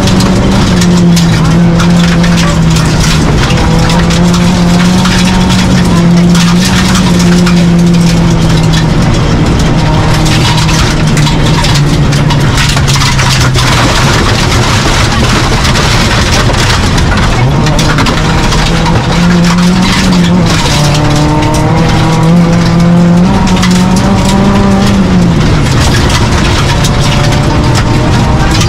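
Proton Neo rally car heard from inside the cabin, its engine running hard at high revs on a gravel stage, with gravel and tyre noise underneath. The engine note drops and climbs again a few times, notably around the middle and near the end, as the driver shifts and lifts for corners.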